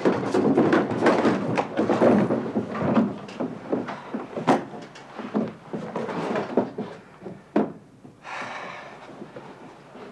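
Doors and cupboards banging open and shut: a rapid, irregular run of knocks and thuds, with two sharper bangs about four and a half and seven and a half seconds in, and a brief scraping rush a little after eight seconds.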